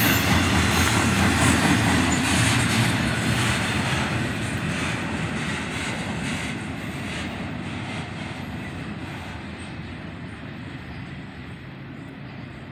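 Double-stack intermodal freight train's well cars rolling past on the rails, the rumble and rattle fading steadily as the end of the train moves away.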